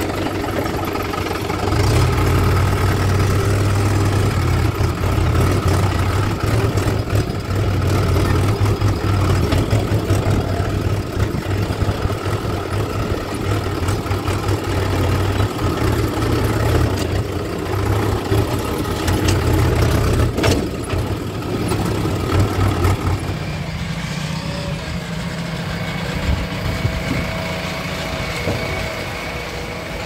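Farm tractor's diesel engine running under load, heard from the driver's seat with a strong low hum, as the gears are worked and the tractor drives. About three-quarters of the way through it gives way to a quieter engine idling with a faint steady whine.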